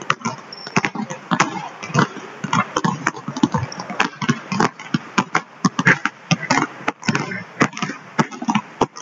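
Several basketballs being dribbled at once on a hardwood gym floor: a dense, irregular run of bounces.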